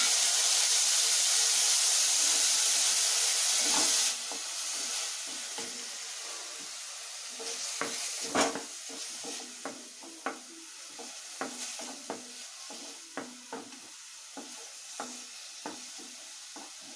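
Onion paste sizzling loudly in hot oil in a kadai. The hiss drops off suddenly about four seconds in. A quieter sizzle follows while a wooden spatula stirs, knocking against the pan about once a second.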